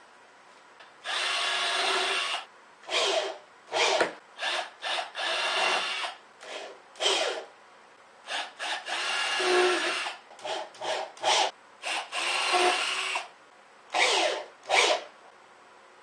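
Power drill running in a string of bursts, a few lasting a second or more and many short blips, driving screws into the wooden frame to fasten a metal handle.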